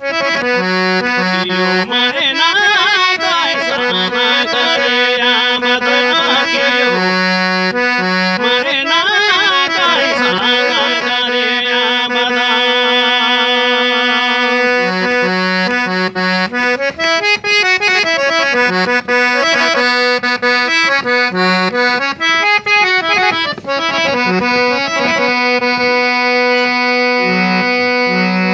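Harmonium playing a raga melody in held, reedy notes over a sustained low drone.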